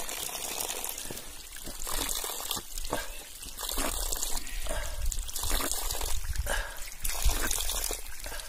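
Water from a small mountain spring trickling and splashing down a rock face.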